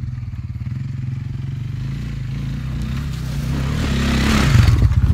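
1986 Honda FourTrax ATV's single-cylinder four-stroke engine running steadily as the quad rides across rough ground, getting louder near the end as it comes up close with a rush of noise.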